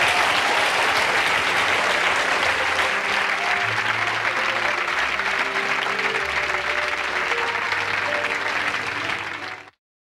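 Studio audience applauding over closing music with low held bass notes. Both cut off abruptly near the end.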